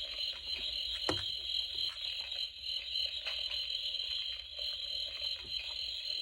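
Steady chirring chorus of crickets, with scattered sharp crackles and pops from a campfire; the loudest pop comes about a second in.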